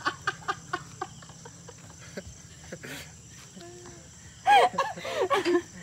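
Laughter trailing off in the first second, then a louder burst of laughter about four and a half seconds in.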